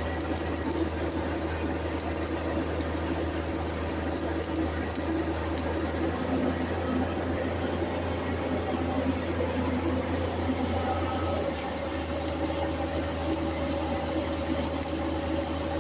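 A steady machine hum with a constant low drone and a few steady higher tones; the low drone weakens about eleven and a half seconds in.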